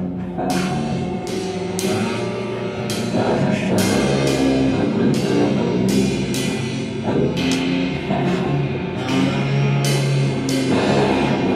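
Instrumental rock-style music with a drum kit keeping a steady beat, sharp hits about every two-thirds of a second over held low notes.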